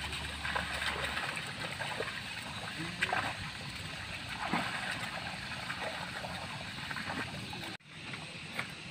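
Muddy water sloshing and splashing as a pair of water buffalo drag a wooden harrow through a flooded rice paddy, with scattered small splashes.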